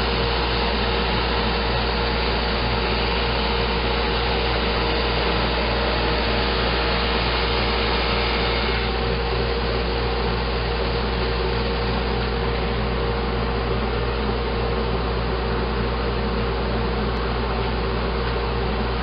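Homemade conveyor-belt drum sander running: a steady machine noise with a low hum under it. About nine seconds in, the higher part of the noise eases slightly.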